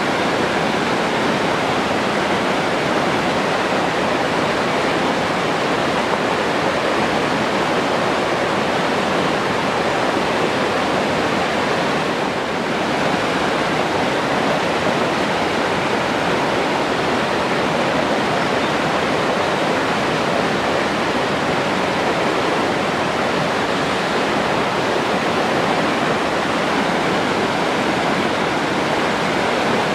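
Forest stream flowing, a steady rushing of water.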